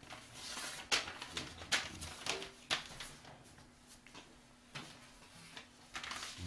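Loose sheets of paper rustling as they are handled and leafed through, with a few sharper crackles.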